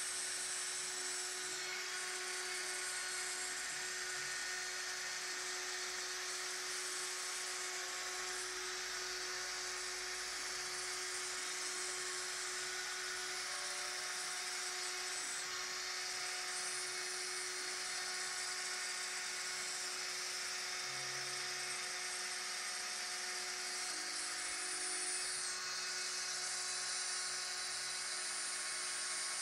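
Proxxon rotary spindle on a home-built gantry CNC router running at high speed and milling through a thin wooden board, a steady high-pitched whine with cutting hiss that holds throughout.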